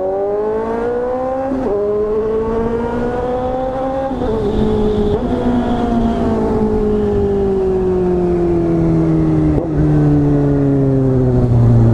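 Motorcycle engine with a loud aftermarket exhaust pulling hard through the gears. The engine note climbs and breaks at two shifts in the first four seconds, then sinks slowly as the bike eases off, with another break near the end.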